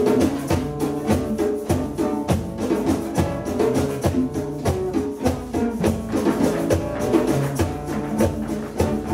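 Guajira dance music with pitched melodic instruments over a steady, regular percussion beat.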